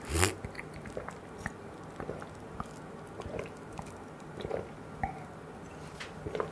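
A person drinking iced black tea from a small glass: a louder sip right at the start, then soft swallows and small wet mouth clicks throughout.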